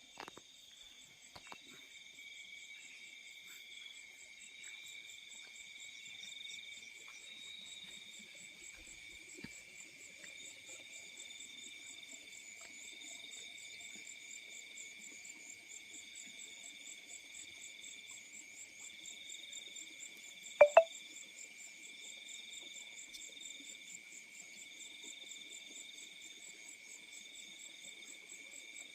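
Crickets and other field insects chirping at night in several overlapping high trills, one of them pulsing about once a second. About two-thirds of the way through, a single short, sharp call or click stands out louder than the chorus.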